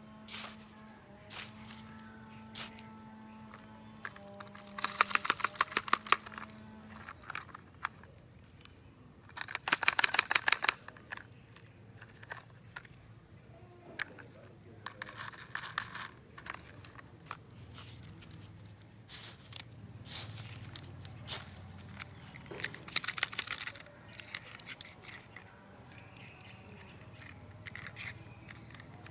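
Plastic toy trucks handled in sand, with several short bursts of rapid clicking from the toys' mechanisms, the loudest about five and ten seconds in. Faint music with a few held notes runs underneath in the first seven seconds.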